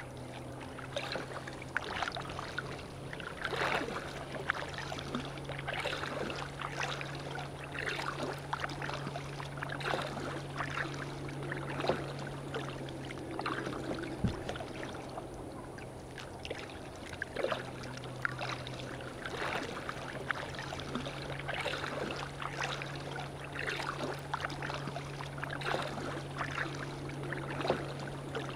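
Water splashing and lapping against a kayak's hull as it is paddled, in irregular splashes every second or so. A steady low hum runs underneath.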